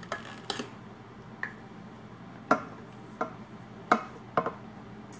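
A measuring cup scooping flour from a clear plastic container, knocking against its sides: about eight light, irregular clicks and taps, the sharpest about two and a half and four seconds in.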